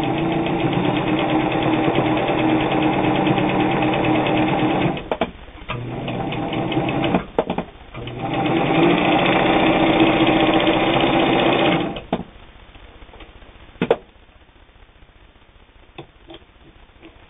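New Home Type H friction-drive sewing machine running fast and stitching fabric, in three runs with short pauses about five and seven seconds in, then stopping about twelve seconds in. A few light clicks follow.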